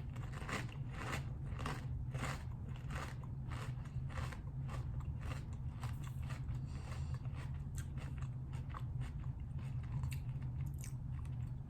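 A person biting and chewing crunchy kettle-cooked potato chips close to the microphone, a rapid run of crisp crunches, over a steady low hum.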